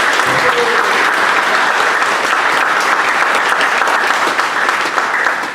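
Audience applauding in a large hall, a dense steady clapping that dies away just after the end.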